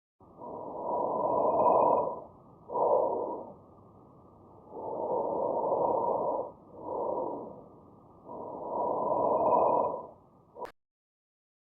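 Recorded breath sounds heard through a stethoscope, muffled. They come in a repeating cycle of a longer rushing phase followed by a shorter one, with a pause between breaths, and cut off abruptly with a click near the end.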